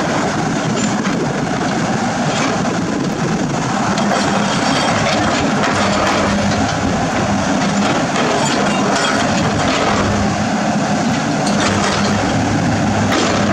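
Heavy diesel construction machinery running under load, its engine humming steadily beneath a continuous grinding, crackling noise with many small knocks.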